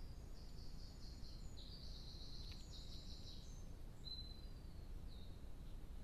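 A small songbird singing a high, fast trilling phrase of about three and a half seconds, followed by two short high notes, over a low steady background rumble.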